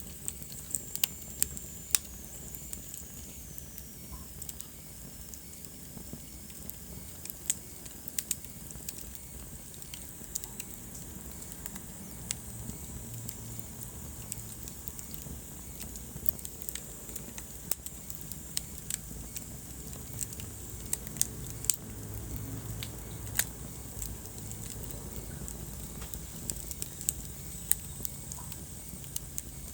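Wood fire burning in a fireplace: a steady low rumble with frequent sharp crackles and pops at irregular intervals. A faint high whistle falls in pitch over the first few seconds.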